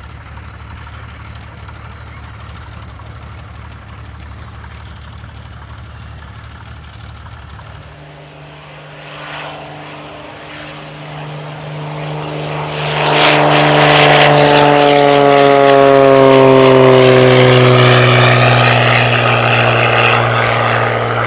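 Aviat Pitts S-2C aerobatic biplane, its six-cylinder Lycoming engine and propeller, passing close: a low steady drone for several seconds, then the engine grows loud from about halfway through and its pitch falls steadily as the plane goes by.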